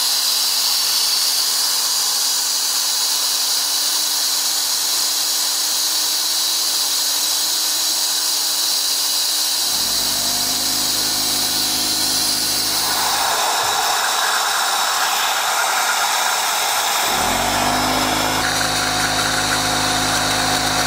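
AirLift venturi vacuum filler hissing steadily as compressed air blows through it, drawing a vacuum on the cooling system. A small air compressor's motor hums on about ten seconds in, stops for a few seconds near the fourteen-second mark, and starts up again about three seconds later, cycling because it struggles to supply the tool's air.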